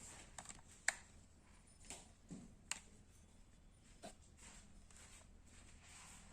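Near silence with a few faint, sharp clicks and taps, about four, spread over the first four seconds, as of small objects being handled.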